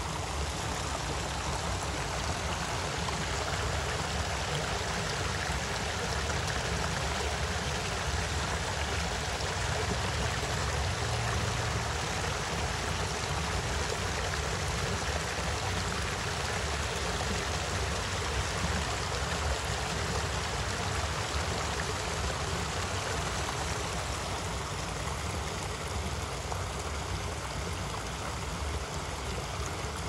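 Running water, steady and unbroken, like a stream or small waterfall spilling into a pond, with a low rumble underneath.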